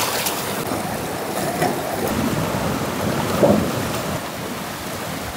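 Steady rush of a river running over rapids, with a few splashes as water and squid are poured and scooped into a large aluminium pot.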